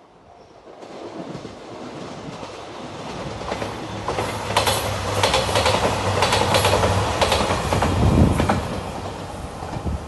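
JR Shikoku 2700 series diesel express train passing close by: it grows louder over the first few seconds, with a steady low engine hum and its wheels clacking over the rail joints as the cars go past, then fades slightly near the end.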